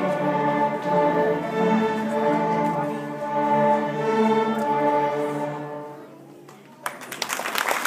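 Beginner school string orchestra of violins and cellos ending a piece on a held chord that dies away about six seconds in. After a short pause, audience applause breaks out near the end.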